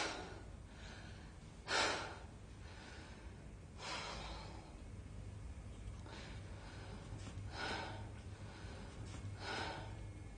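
A woman breathing heavily and audibly in distress: a series of sharp, noisy breaths every two seconds or so, the loudest about two seconds in.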